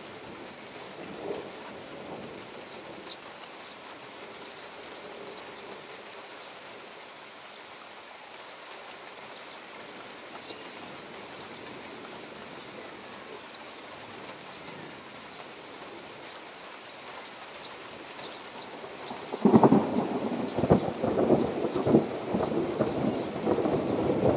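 Steady rain falling, then about twenty seconds in a sudden loud clap of thunder that rolls on in crackling rumbles.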